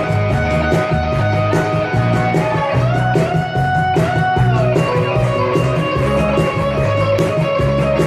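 Live instrumental guitar music: an acoustic guitar strumming a steady rhythm with an electric guitar playing over it. About three seconds in, a held note bends up in pitch and slides back down about a second and a half later.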